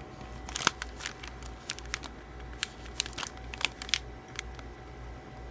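Plastic wrapper of a protein cookie crinkling as the cookie is handled for a bite: scattered soft crackles and clicks.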